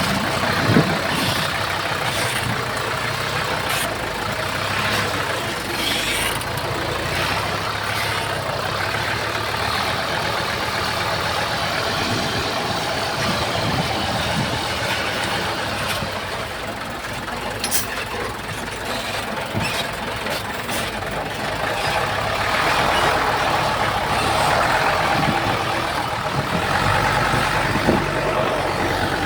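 Komatsu D31P crawler bulldozer's diesel engine running steadily, with scattered short metallic clanks. It grows louder in the last several seconds.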